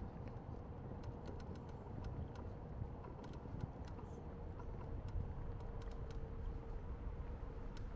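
City street background: a steady low rumble of traffic with a faint constant hum, and scattered light clicks throughout.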